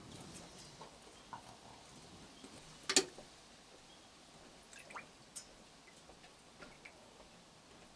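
Faint, scattered clicks and taps, with one sharper knock about three seconds in: raccoons moving and feeding on a wooden deck, one with its paws in a metal water bucket.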